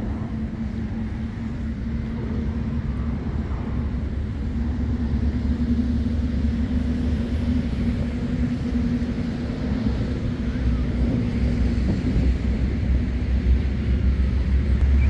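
A steady low engine rumble with a constant low hum, growing slightly louder.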